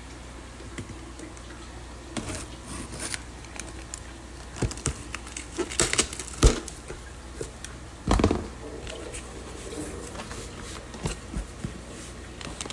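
A blade slitting the packing tape along a cardboard box's seam, then the cardboard flaps pulled open, with scattered scrapes and knocks; the sharpest knock comes about six and a half seconds in.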